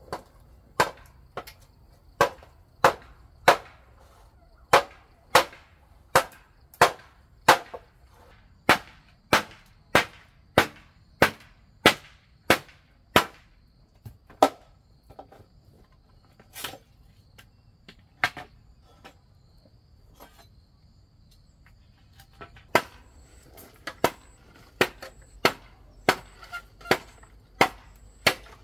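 A steady run of sharp strikes, about one and a half a second, stopping for several seconds midway and then starting again.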